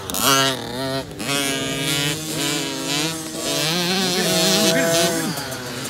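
Small 50cc youth dirt bike engines revving up and down as they race past, their pitches overlapping and rising and falling.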